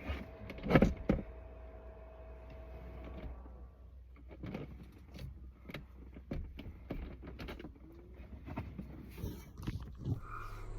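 A sharp knock about a second in, then faint scattered clicks and rustles of handling inside a vehicle, over a steady low hum.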